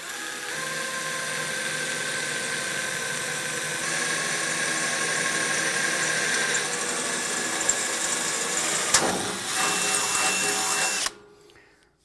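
Cordless drill running steadily as a metal drill bit bores a pilot hole into the table saw's steel cabinet. There is a sharp click about nine seconds in, and the drill stops suddenly about two seconds before the end.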